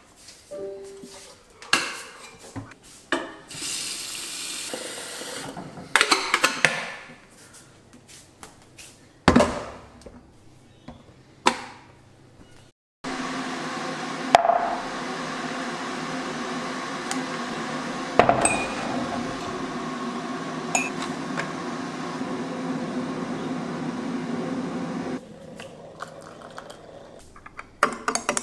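Making a mug of tea: a mug, milk bottle and utensils clinking and knocking on a countertop, with water running. About halfway through, the knocks give way to roughly twelve seconds of a steady rush of water that starts and stops abruptly.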